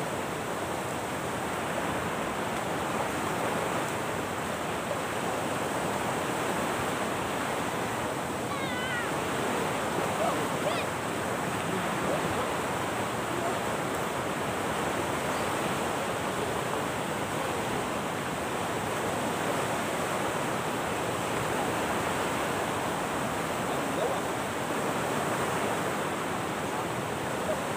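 Steady rushing wash of surf on a sandy beach, even and unbroken.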